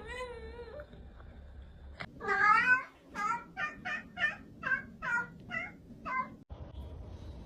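A cat meowing: a short wavering call at the start, a loud drawn-out meow about two seconds in, then a quick run of about eight short meows, two or three a second.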